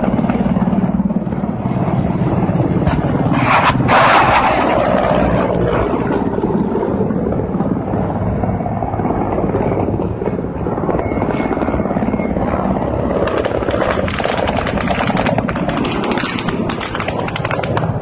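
Low-flying military attack and transport helicopters passing, a loud steady drone of rotors and turbines. A sudden loud burst about three and a half seconds in rings on for about a second.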